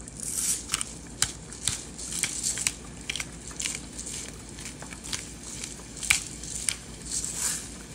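Chopped beef frying in a nonstick pan, crackling and popping irregularly over a faint high sizzle.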